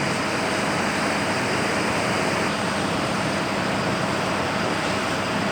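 Steady mechanical hum and noise with a faint low drone, with no changes or sharp events.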